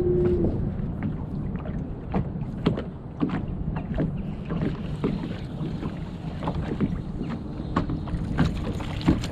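On-board sounds of a fishing boat on the water: a steady low rumble with irregular sharp clicks and knocks throughout, and a faint steady hum that comes in near the end.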